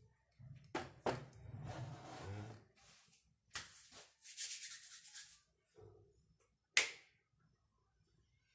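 Handling noises: a few sharp clicks and some rustling, with a hissing noise for about two seconds in the middle; the loudest click comes near the end.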